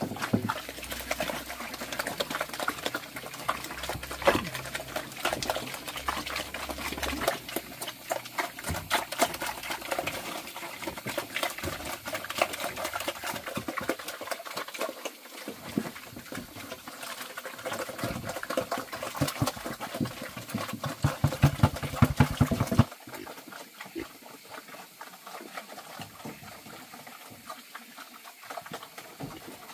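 Several pigs eating green feed from a wooden trough: a dense, irregular run of chomping and slurping clicks. The sound drops abruptly to quieter, sparser pattering about three quarters of the way through.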